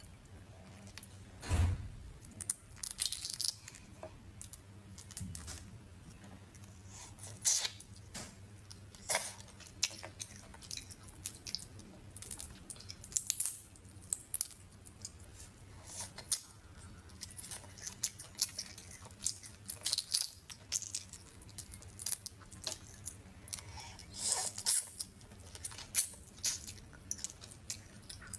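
Cooked crawfish shells cracking and tearing as they are peeled apart by hand, in irregular crackles and snaps throughout.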